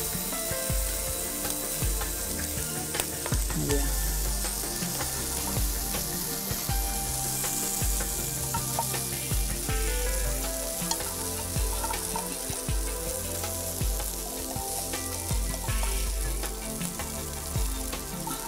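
Prawns and oil sizzling in a hot frying pan, with the clicks and scrapes of a metal spatula lifting them out. Soft background music with a changing bass line plays underneath.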